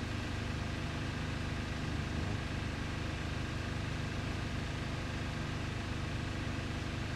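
Steady low machine hum that holds unchanged throughout, with no distinct events.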